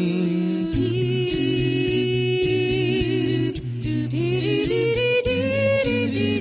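Mixed four-voice a cappella group singing in close harmony with no instruments. A bass voice holds low notes under the chord from about a second in, and a higher voice's line climbs near the end.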